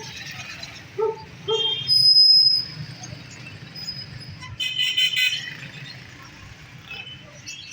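Busy animal-market ambience: a puppy yips a couple of times near the start, then a short loud high toot about two seconds in, and high chirping around the middle.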